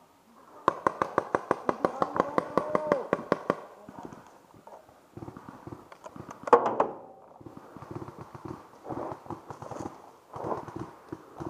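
A rapid string of paintball shots, about seven a second for some three seconds. About six and a half seconds in comes a single loud thunk, followed by irregular footsteps and rustling through brush.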